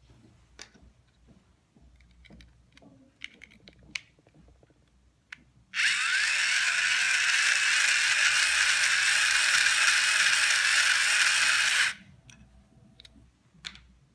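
Hand-cranked toy generator whirring as its handle is turned: the plastic gear train and motor spin up with a rising whine, run steadily for about six seconds to light an LED module, then stop abruptly. Light plastic clicks of modules being fitted come before and after.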